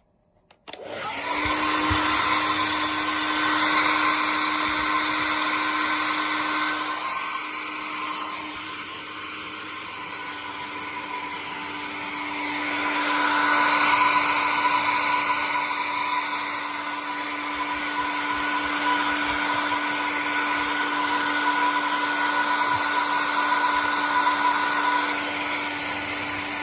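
Handheld hair dryer running: a steady motor hum with a rushing-air hiss. It switches on about a second in, and its loudness swells and dips as it is moved about.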